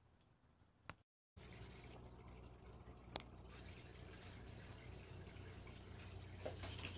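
Near silence: room tone with a low steady hum and a few faint clicks, cut off briefly about a second in.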